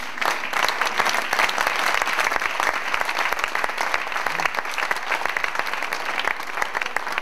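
Audience applauding, many hands clapping together, at its fullest in the first few seconds.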